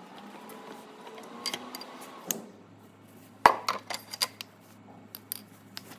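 Steel tools and small engine parts clinking and knocking against each other as oil nozzles are unscrewed from a diesel engine block during teardown. The clinks are scattered and sharp, the loudest about halfway through, and a faint steady low hum comes in partway.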